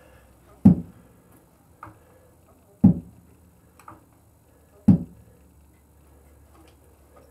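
A motorcycle's spring-loaded steel side stand being swung up and down on its freshly oiled pivot, snapping against its stop. Three loud metallic clacks come about two seconds apart, each with a short ring, with softer clicks between them.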